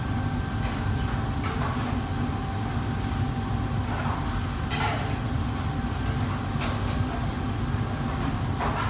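Steady low roar of a commercial kitchen's range and ventilation, with several sharp clinks and clatters of metal pans and utensils.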